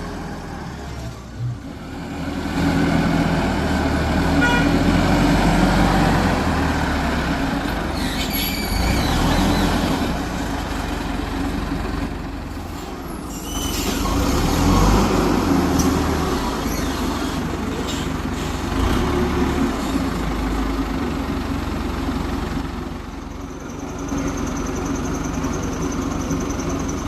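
Heavy construction machine's diesel engine running, its load rising and falling, with a couple of sharp knocks partway through.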